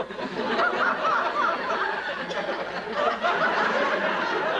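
Studio audience laughing: many people breaking into laughter all at once, which carries on steadily.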